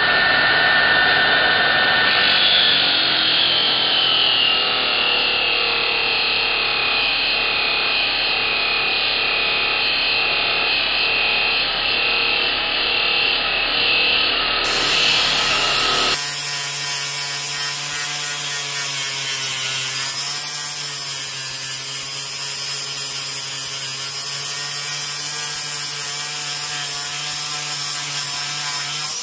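Angle grinder running with an abrasive disc pressed against the steel head of a lump hammer, grinding off rust and pitting: a steady motor whine over a grinding hiss, the whine dipping in pitch a few seconds in.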